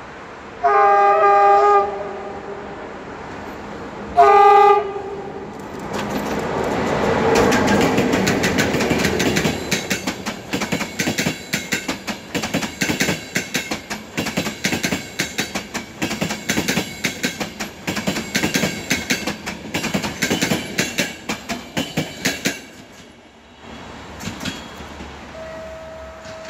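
CFR Călători class 41 electric locomotive sounding two horn blasts, the first about a second long and the second shorter, then passing with its train of passenger coaches: a swelling rush as the locomotive goes by, then a long run of regular clickety-clack from the coach wheels over the rail joints, which dies away near the end.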